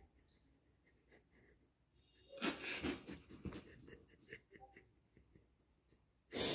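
A boy sobbing: short gasping, wheezy breaths, loudest a little over two seconds in and again at the very end, muffled with his face pressed into the bed.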